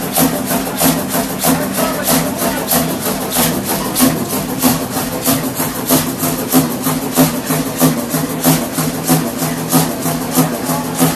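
Large old engine running at a steady speed, its valve gear clattering in an even beat of about four to five knocks a second over a pulsing low hum.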